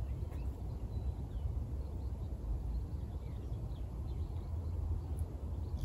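Wind rumbling on the microphone, with faint scattered bird chirps in the background.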